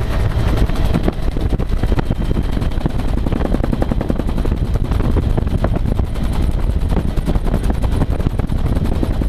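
Bell UH-1 Huey helicopter in flight, heard from inside the open-doored cabin: the main rotor's fast, even chop over the steady engine noise.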